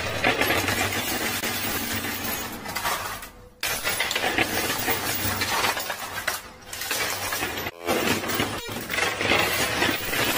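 Poker chips and coins clattering and clinking across a coin pusher's playfield as the pusher shelf shoves them, over a low steady hum. The sound drops out briefly twice, about a third and three-quarters of the way through.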